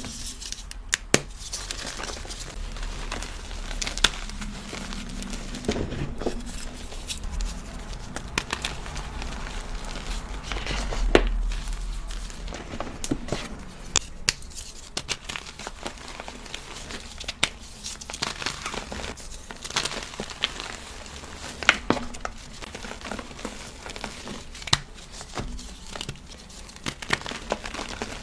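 Dyed BSN gym chalk cubes being crushed and crumbled, a crunchy crackling with many sharp, irregular cracks.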